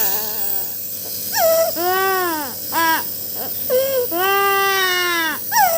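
A baby crying in a string of wails, two long drawn-out cries among shorter ones, each rising and then falling in pitch.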